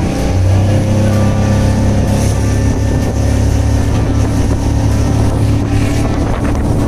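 Outboard motor of a small open motorboat running steadily at speed, a loud even drone that firms up about half a second in, over the hiss of water rushing past the hull.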